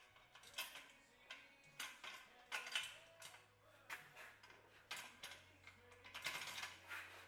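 Irregular metallic clicks and clanks, about one or two a second, from a steel motorcycle lift stand being set and worked under the bike.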